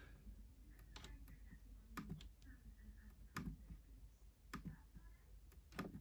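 Faint, irregular clicks of a laptop touchpad being pressed, about ten spread across a few seconds.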